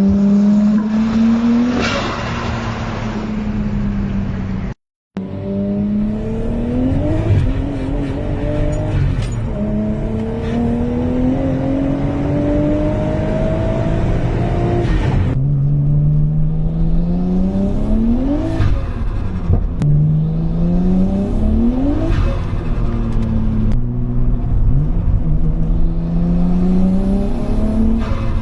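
Nissan Skyline R33 GTS-T's turbocharged RB25DET straight-six accelerating hard through the gears, its engine note climbing steadily and then dropping at each upshift, several times over. Turbo flutter (compressor surge) chatters as the throttle lifts for the shifts.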